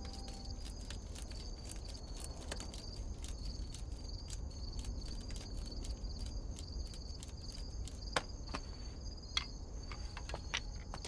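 Insects chirping steadily in a high, pulsing drone, with scattered light clicks and taps, a few sharper ones near the end.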